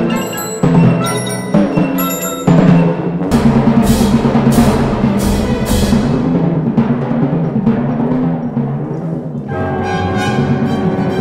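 Timpani played melodically in fast runs of sixteenth notes across several tuned drums, with a full orchestra accompanying. A few heavy, ringing accented strokes come first, then a dense run of rapid strokes, and held orchestral chords come in near the end.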